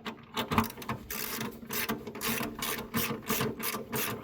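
Ratchet wrench with a 10 mm socket clicking as it snugs down the plastic engine cover's bolts, in an even run of about four or five clicks a second.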